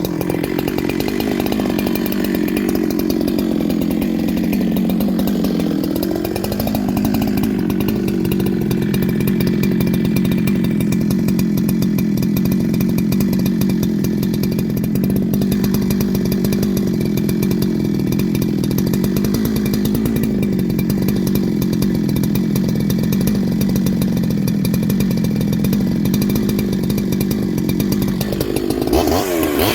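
Two-stroke chainsaw fitted with a shotgun-style pipe muffler, running steadily at high revs during a tune-up test. It dips and picks back up about six seconds in, and the revs sweep up and down near the end.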